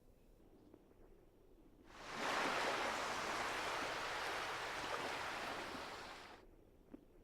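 A rush of surf as a sea wave swells in about two seconds in, holds for a few seconds, then fades away.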